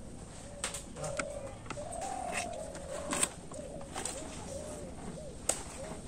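A dove cooing in a run of short, repeated, low notes, with scattered sharp clicks, the loudest about three and five and a half seconds in.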